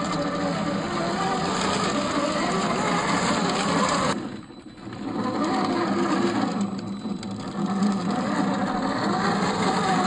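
Electric motor and gear drivetrain of a 1/10-scale RC crawler on an SCX10 II-type chassis, running with a steady, wavering mechanical whir. It stops abruptly about four seconds in, picks up again about a second later, and eases off briefly once more near seven seconds.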